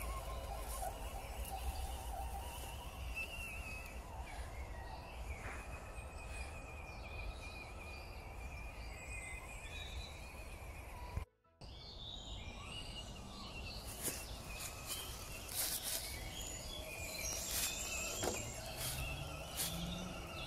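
Outdoor woodland ambience: a steady low rumble with thin bird-like calls, and the faint whine of the electric scale RC crawler's motor and gears, which rises near the end as it climbs a dirt slope. The sound drops out for a moment about halfway.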